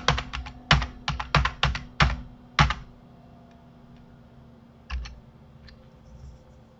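Computer keyboard keys pressed in quick succession, about eight sharp keystrokes in the first three seconds, then a single keystroke about five seconds in.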